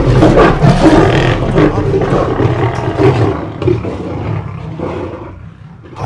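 Lion roaring behind its cage door, a loud, rough call that fades out about five seconds in.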